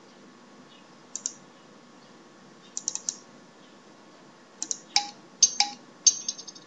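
Sharp clicks of someone working a computer's keyboard and mouse, in small quick groups: a pair about a second in, three near the middle, then a busier run of clicks in the last two seconds.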